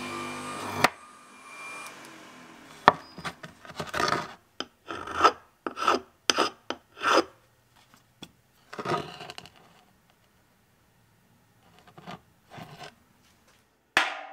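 A drill press runs briefly and stops within the first second. Then come short rasping strokes of a hand tool working metal, in bunches of about two a second with pauses. A single knock near the end comes as a brass block is set down on a steel table.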